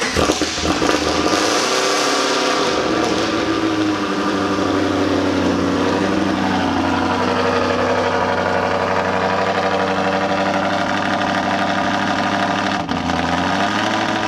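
V8 engine on its first start after new cylinder heads and a camshaft: it catches and runs up in revs for the first few seconds, then settles into a steady idle. Near the end the idle briefly dips and recovers.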